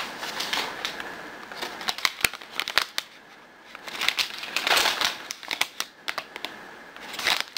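Plastic snack bags crinkling as they are picked up and handled, in irregular rustling bursts with sharp clicks, busiest about four to five seconds in and again near the end.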